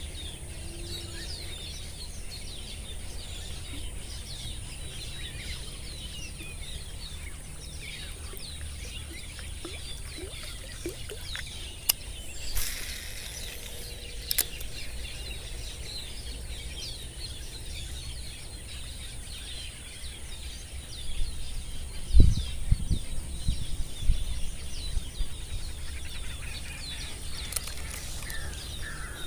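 Many small birds chirping over a low steady rumble, with a brief hiss and a couple of clicks near the middle and a cluster of low thumps about two-thirds of the way through.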